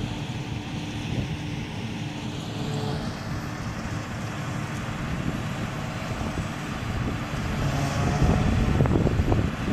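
Forage harvester working a field of mown grass: a steady engine and machinery drone that grows louder near the end as the machine comes closer.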